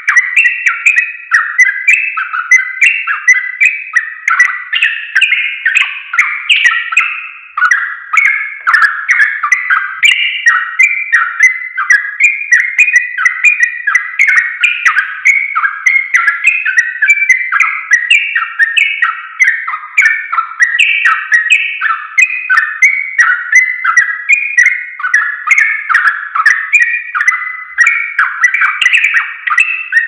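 Yellow-vented bulbul singing in full 'ropel', a rapid, unbroken stream of short warbled phrases that jump up and down in pitch with no pauses.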